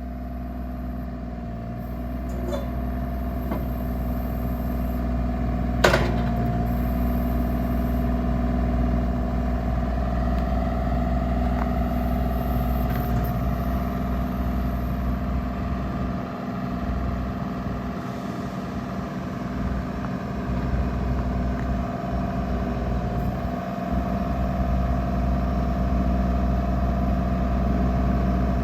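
Bobcat E32 mini excavator's diesel engine running steadily, with one sharp clank about six seconds in and the engine note dipping and swelling between about 16 and 24 seconds.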